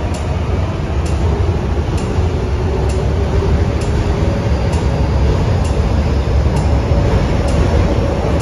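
MTR C-stock electric multiple unit, built by CNR Changchun, pulling out of the station: a steady low rumble of the train on the track that grows slightly louder as it gathers speed.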